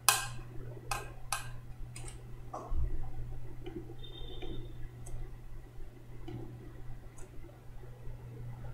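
Scattered light clicks, several in the first three seconds and a few more later, over a steady low hum.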